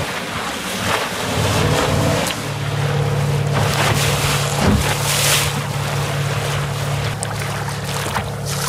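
Water rushing and splashing along a small sailing dinghy's hull, with wind buffeting the microphone. From about a second and a half in, a steady low hum sits under the water noise.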